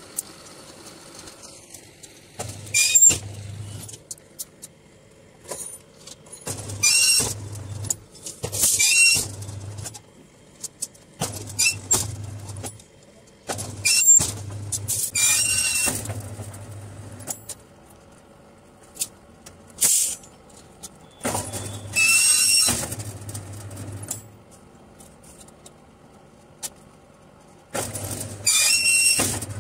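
Electric rebar bending machine running in short runs of a second or two, about seven times, each with a low motor hum and a high metallic squeal as the steel bars are bent into ring-shaped stirrups. Sharp clanks of rebar come between the bends.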